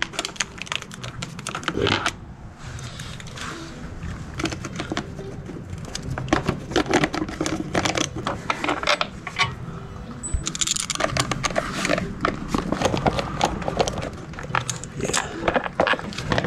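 Ratcheting screwdriver with an 8 mm socket clicking rapidly in runs as the front sprocket cover bolts are backed out, pausing briefly twice.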